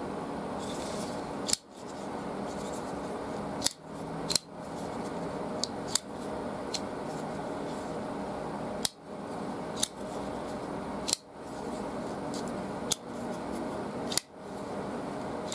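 SteelClaw Aspid folding knife being opened and closed by hand: about ten sharp metallic clicks of the blade and lock, spaced irregularly, as the freshly reassembled knife's action is worked.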